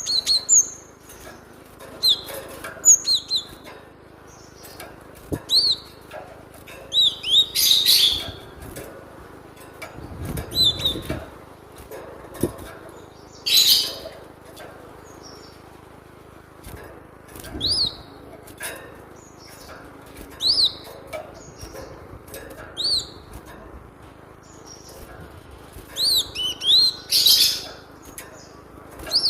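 Cinereous tit (glatik batu) calling: short, sharp, high chirping notes in clusters every second or two, with a few louder noisy bursts among them.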